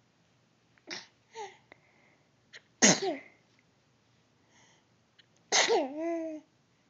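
A baby sneezing twice, about three seconds apart, each a sharp burst; small quiet sounds come before, and a short voiced sound follows the second sneeze.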